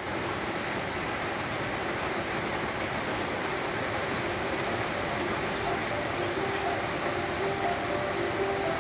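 Steady rain falling, with scattered sharp drop ticks. Faint held musical tones come in about halfway through and grow slightly louder.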